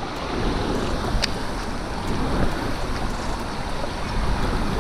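Steady wind rushing over the microphone, a rumbling hiss with no pitch to it, with one faint click about a second in.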